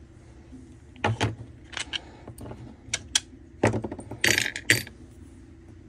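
A series of sharp metallic clinks and knocks, hand tools and small parts being handled and set down on a workbench, with a short rattle near the end.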